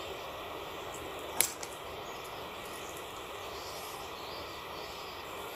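A single sharp snip of hand scissors cutting through a thin loa bonsai branch about a second and a half in, over a steady faint outdoor hiss.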